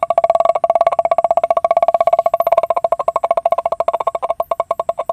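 A man's vocal imitation of a tempo, a three-wheeled auto-rickshaw, running: a rapid pulse on one steady pitch that slows over the last second and cuts off.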